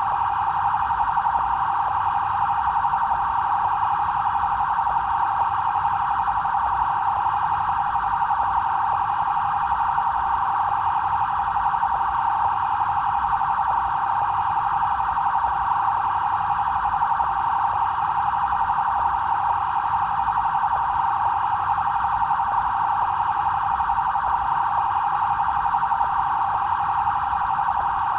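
BAEP police vehicle siren sounding without a break as a fast, even warble that holds the same pitch throughout.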